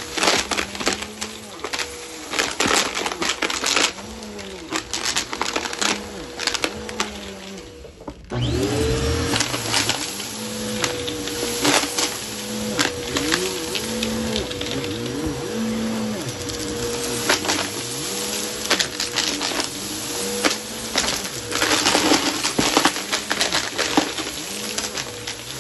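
Bissell Helix upright vacuum cleaner running with a steady motor whine as it is pushed over carpet, sucking up scattered dry lentils and pennies that crackle and click through it. The sound gets suddenly louder about a third of the way in.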